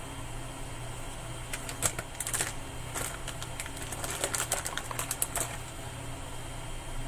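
Computer keyboard keys clicking in a quick, irregular run of taps lasting a few seconds, over a steady low electrical hum.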